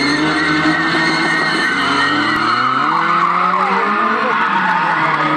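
Car engines revving up and down, several at once, with tyres skidding and squealing as the cars slide.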